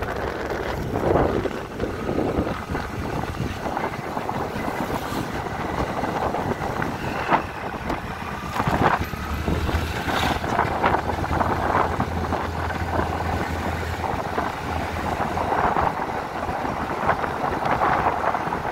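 Riding a motor scooter: steady engine and road noise with wind buffeting the microphone, and a low hum for several seconds in the middle.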